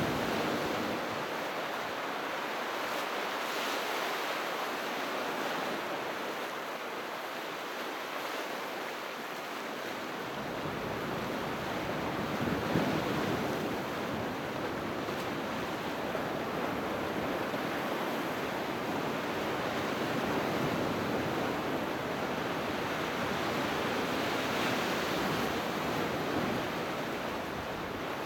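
Sea surf washing continuously onto the shore in winter, swelling and easing in slow surges, with one louder surge near the middle; low rumble from the breakers fills in after about ten seconds.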